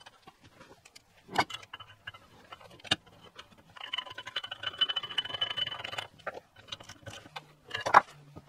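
Scattered light clicks and clinks of metal motorcycle fork parts being handled and fitted together, with a scraping stretch of about two seconds, starting about four seconds in.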